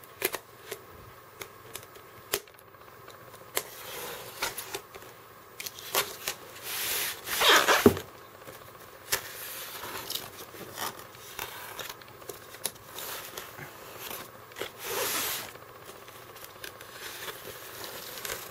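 Utility knife slicing through packing tape along the seam of a styrofoam box, a series of rasping cuts and scrapes with small ticks between them; the loudest and longest cut comes about seven to eight seconds in, another around fifteen seconds.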